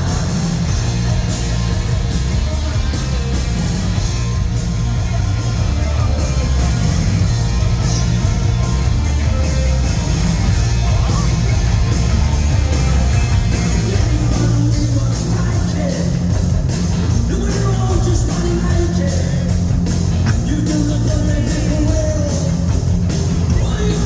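Live punk rock band playing loud, with drums, bass and electric guitars, and a vocal line that is clearest in the second half.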